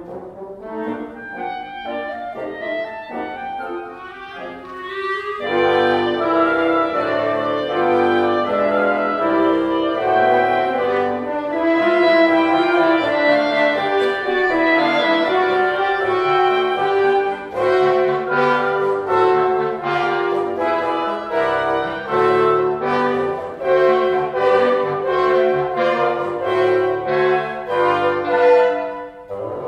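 Wind ensemble of flutes, oboes, clarinets, bassoons and French horns playing a lively classical piece. The texture is thin for the first few seconds, then the full group comes in louder about five seconds in, with short repeated chords through the second half.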